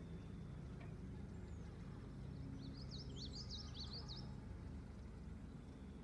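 Quiet outdoor ambience: a low steady rumble, with a songbird's quick twittering phrase of rapid up-and-down notes about two and a half seconds in, lasting over a second.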